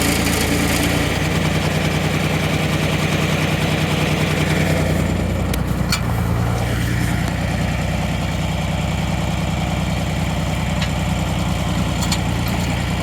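Backhoe's diesel engine running steadily, working harder for about the first five seconds and then easing back to a lower note. A couple of light knocks come around six seconds in.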